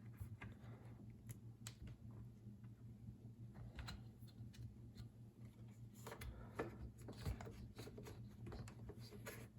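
Scattered light clicks and taps, as of small parts or hand tools being handled, over a faint steady low hum. A few louder taps come about two thirds of the way in.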